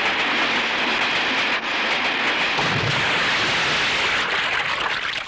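Loud, steady rushing and splashing of churning water.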